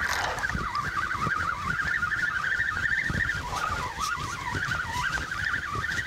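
A spinning reel being wound in, its gears giving a continuous wavering whine that rises and falls with the turning handle, over wind buffeting the microphone.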